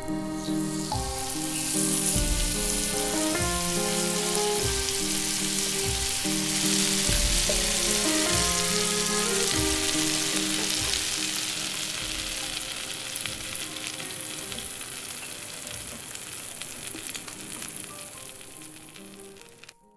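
Hanwoo beef striploin steak sizzling as it sears in a very hot frying pan. The sizzle starts as the meat goes in and slowly dies down over the last several seconds, with soft background music under it in the first half.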